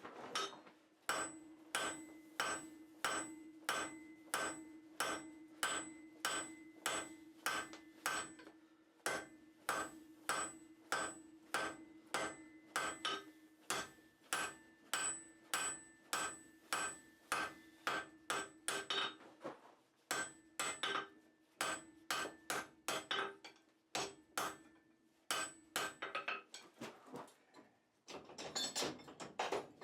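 Blacksmith's hand hammer striking hot steel on an anvil in a steady rhythm of about two blows a second, with the anvil ringing on under the blows. There are a few short pauses, and the hammering stops near the end, followed by a brief cluster of lighter taps.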